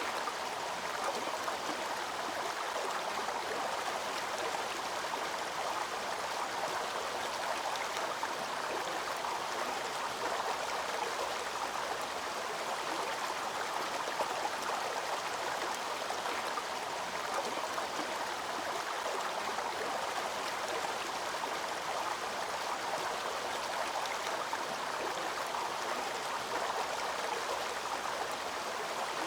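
Small waterfall splashing into a stream: a steady, even rush of water that does not change.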